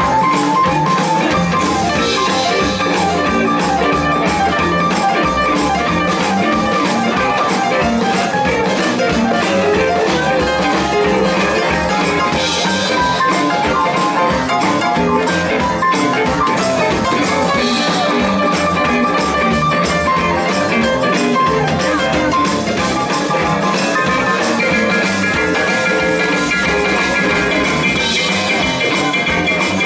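Live blues band playing an instrumental stretch without singing: electric guitar over a drum kit, with cymbal crashes every few seconds.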